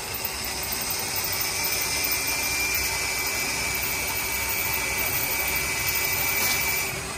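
A power tool running steadily with a hiss and a thin high whine; the whine comes in about a second in and stops near the end.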